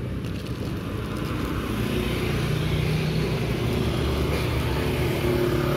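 A motor vehicle's engine running close by, swelling over the first couple of seconds and then holding steady.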